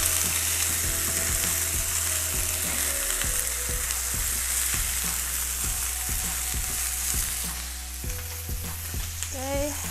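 Lamb pieces sizzling in hot oil with ginger and spices in an enameled cast-iron braiser, with chopsticks clicking against the pot as the meat is stirred. A steady low hum runs underneath, and the sizzle eases a little near the end.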